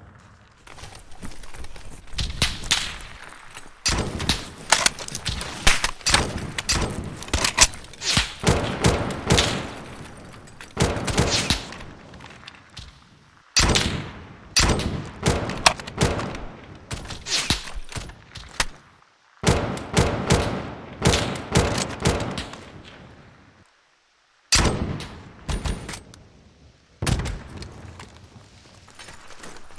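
Gunfire in a film shootout: dense volleys of rapid and single gunshots, edited-in sound effects, with brief lulls and a sudden cut to silence about 24 seconds in before the shooting resumes.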